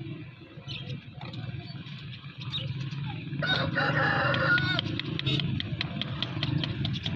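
A rooster crows once, about three and a half seconds in. Under it, quick rhythmic scraping strokes, about four or five a second, come from a rasp roughening a motorcycle inner tube around the puncture to prepare it for a patch, over a steady low hum.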